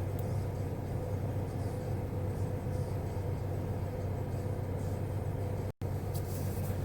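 Steady low rumble of a car heard from inside the cabin, with a faint steady tone above it. It cuts out for an instant near the end, then carries on unchanged.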